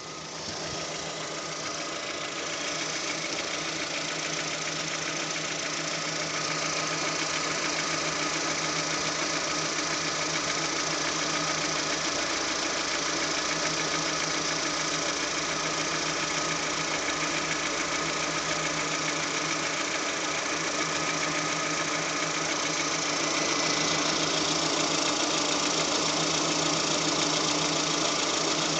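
Car engine idling steadily with a new crankshaft position sensor fitted; the whistling, buzzing noise it had is gone. It gets slightly louder about four seconds from the end.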